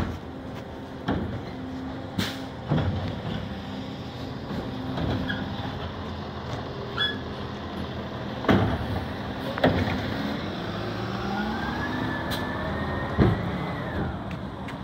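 A garbage truck's engine running, with the clanks and knocks of its automated side-loader arm handling carts. From about ten seconds in, a whine rises in pitch, holds high for a few seconds, then drops away.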